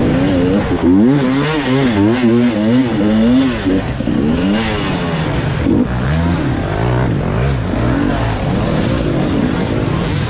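Off-road dirt bike engine, close up, revving up and down in quick repeated throttle blips as it is worked over rough ground. The pitch swings up and down several times a second for the first few seconds, then runs lower and more unevenly.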